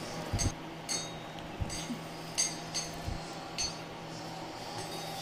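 Kitchen knife cutting rolled-out bread dough into strips on a granite countertop: several light clinks and taps, a second or less apart, as the blade goes through the dough and meets the stone.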